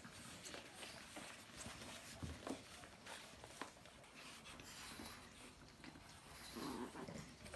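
Pug puppies playing with an adult pug: faint dog sounds and scuffling, with scattered small clicks and a short, louder low sound near the end.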